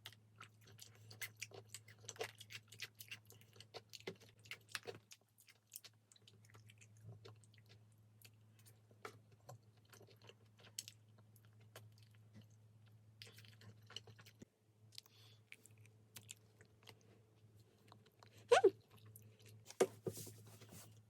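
A person chewing and crunching food close to the microphone, a string of small scattered crunches and mouth clicks over a faint steady low hum, with a few louder sharp sounds near the end.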